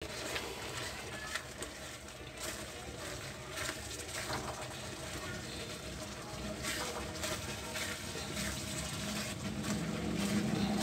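Onion, yogurt and tomato masala sizzling as it fries in a black karahi. A yellow spatula scrapes and stirs it, giving short scraping strokes over the steady sizzle.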